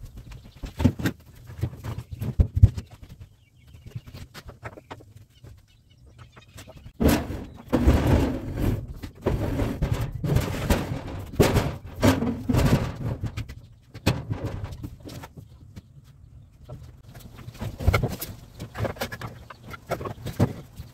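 Knocks and thuds of shop furniture being handled, with a long rumbling scrape from about seven to fourteen seconds as a heavy workbench with a steel base is pushed across the floor; more knocking near the end.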